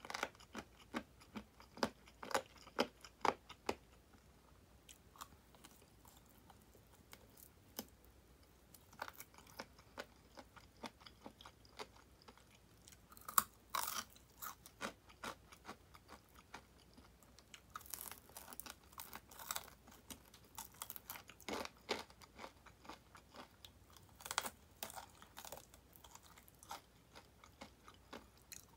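Crunching and chewing of crispy deep-fried chicken-wing 'tulips' being bitten into. Sharp, crackly crunches come in several bunches, with quieter chewing between them.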